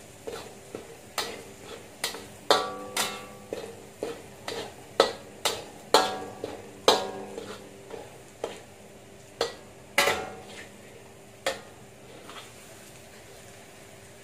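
Metal spatula stirring in a stainless steel wok: irregular clanks and scrapes against the pan, each with a short metallic ring. The strikes stop a couple of seconds before the end.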